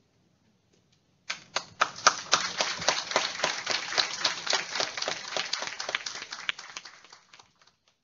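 A small audience applauding: hand claps start suddenly about a second in, run as a dense patter, then thin out and fade away near the end.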